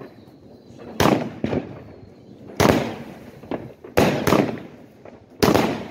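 Fireworks going off: a series of loud, sharp bangs, about six, some in quick pairs, each dying away briefly before the next.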